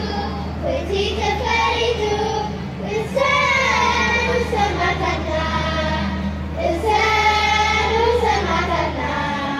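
Children's voices singing a melody in long held phrases, amplified through outdoor loudspeakers, over a steady low hum.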